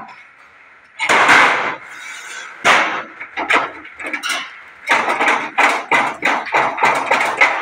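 Shuttering being stripped from under a concrete slab: a long crashing clatter about a second in, a single knock a little later, then a run of irregular bangs and knocks, a few a second, in the second half.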